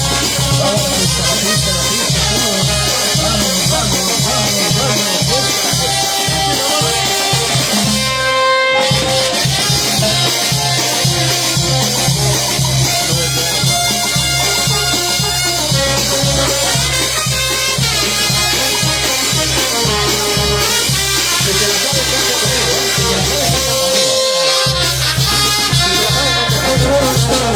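Live brass band playing an instrumental passage of a Latin dance song, with sustained horn lines over a steady bass and percussion beat. The band breaks off briefly about eight seconds in, then plays on.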